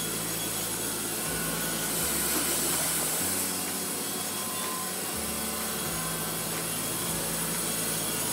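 Baker Products 3650E horizontal band sawmill running, its band blade cutting steadily through a log.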